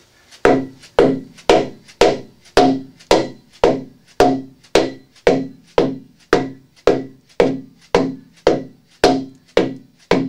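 Hammer blows at an even pace of about two a second, each with a short ringing tone, driving a PVC pipe down through a rubber gasket into a cast iron sewer hub.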